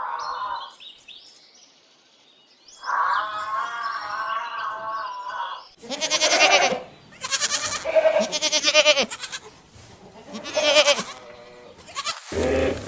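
Animal calls: a wavering pitched call, then three louder, harsher calls in the second half, the middle one the longest. A low rumbling sound starts just before the end.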